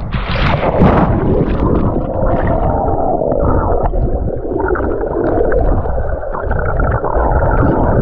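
A splash about half a second in as a swimmer and the action camera go into the sea. Then the muffled, rumbling underwater sound picked up by the submerged camera, with bubbles and water rushing past as he swims.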